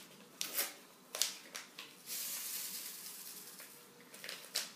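Paper sachet of vanilla sugar rustling and crackling as it is opened and emptied over a glass bowl of grated apple: a few short crackles and clicks, and a steady hiss for about a second and a half in the middle.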